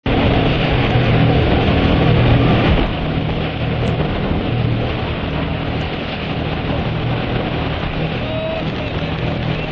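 Motor of a tour boat running with a steady low hum under a loud roar of rushing water and spray. The roar is loudest for the first three seconds, then eases slightly.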